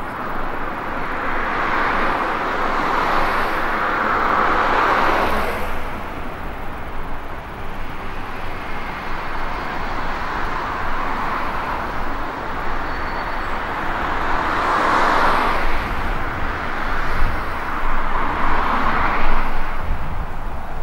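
Road traffic: vehicles passing one after another, each swelling and fading, over a steady background of traffic noise.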